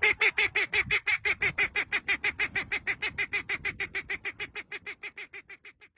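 A bird calling in a rapid, even series of short notes, about seven a second, slowly fading toward the end.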